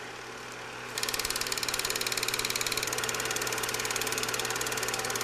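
Film projector running: a steady motor hum, then from about a second in the rapid, even clatter of the film mechanism.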